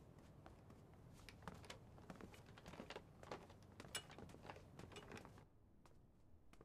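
Footsteps of several people walking on stone paving, heard as a faint, quick run of clicks and taps. They stop about five and a half seconds in, leaving quiet room tone with a few light ticks.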